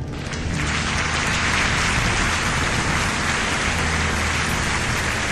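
Steady rushing wind and road noise from a motorcycle ride, with a low steady hum beneath.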